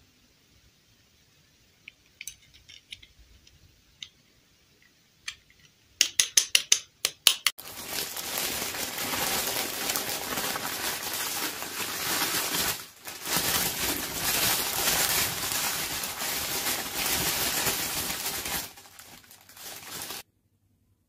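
A few faint clicks of small plastic dolls being handled, then a clear plastic bag wrapped around fashion dolls crinkling loudly as it is handled: a quick run of sharp crackles, then a continuous dense rustle that fades out shortly before the end.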